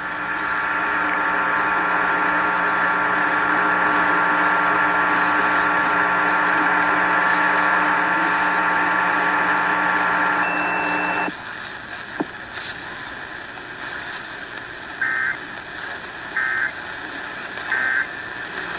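Emergency Alert System test over a radio: a loud, steady buzz with many overtones for about the first eleven seconds that cuts off suddenly, then three short bursts of EAS end-of-message data tones about a second and a half apart, marking the end of the monthly test.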